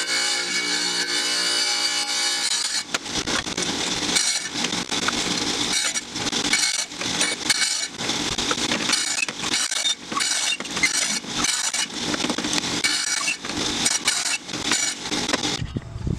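Wet tile saw's diamond blade grinding through a glass bottle as the bottle is turned against it: an uneven, scraping grind that surges and dips many times and thins out near the end. The first few seconds hold music with steady notes.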